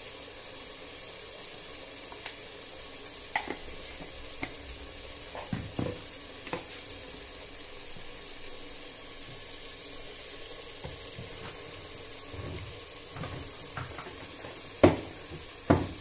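Masala of chilli powder, turmeric and ginger-garlic paste frying in oil in an open aluminium pressure cooker, a steady sizzle. A metal spatula knocks against the pot now and then, with two loud clanks near the end.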